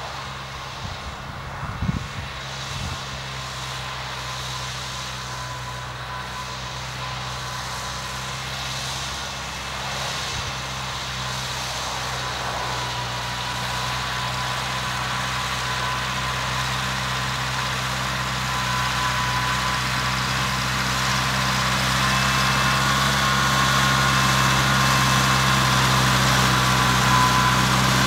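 Farmall Cub tractor's small four-cylinder flathead engine running steadily under load while pulling a plow, growing louder as the tractor approaches. A few short low thumps about two seconds in.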